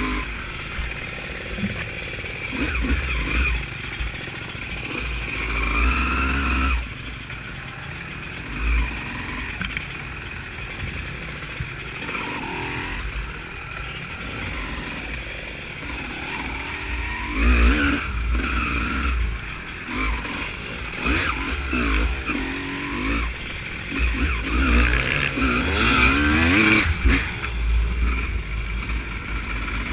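Honda CR250R two-stroke motocross bike being ridden off-road, its engine revving up and dropping back several times as the rider works the throttle, with wind rumbling on the microphone.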